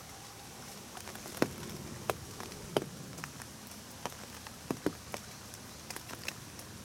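Rain falling on an umbrella: irregular single drops tapping on the canopy, a few of them much louder, over a steady hiss of rainfall.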